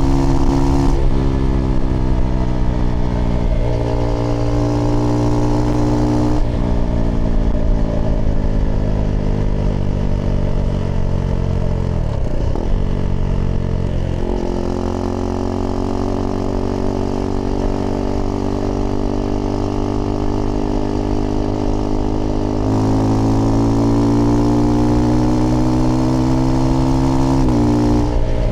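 Husqvarna Svartpilen 401's single-cylinder engine running through an aftermarket IxRace Mk.2 exhaust with a modified dB killer, heard on the move. The engine note changes abruptly at several gear changes, its pitch sinks slowly as the bike slows around the middle, then climbs again as it accelerates.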